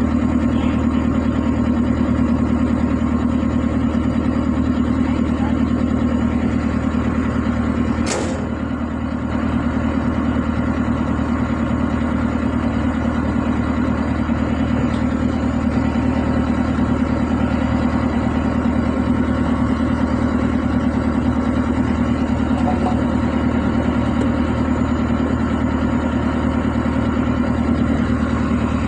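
Engine idling steadily at an even pitch, with one brief sharp knock about eight seconds in.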